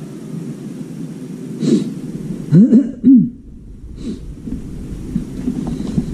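A person coughing a few times in quick succession, close to the microphone, about halfway through, over a steady low background rumble.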